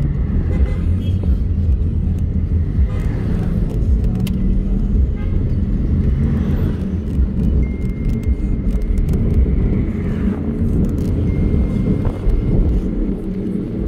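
Road and engine rumble inside a moving car, with faint voices at times and a thin high steady tone twice in the second half.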